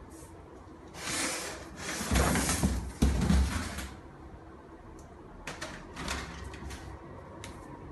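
Packaging being pulled open and handled while a wet grinder is unpacked from its box: about three seconds of scraping and rustling with low thumps, then a few scattered light knocks and clicks.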